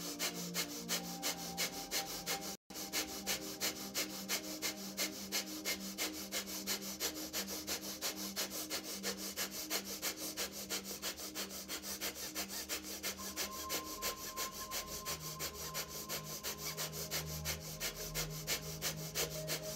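Rapid rhythmic breathing through the nose, breath of fire: a forced exhale, each driven by a pull of the belly inward, about three a second and evenly paced.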